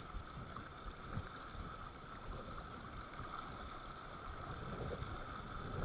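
Faint, steady rush of a fast-flowing river current.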